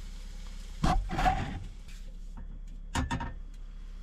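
Two short bouts of knocking and scraping, about a second in and again near three seconds in, as cookware and kitchen utensils are handled. A steady low hum runs underneath.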